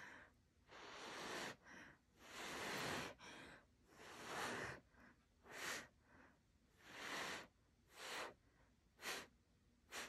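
A person blowing a series of breathy puffs onto wet fluid acrylic paint, about eight in all, each a second or less and shorter toward the end: blowing the paint to open it into blooms.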